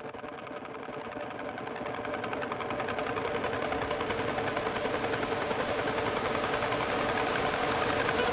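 Background music fading in: a buzzing drone with a fast, even pulse, growing steadily louder.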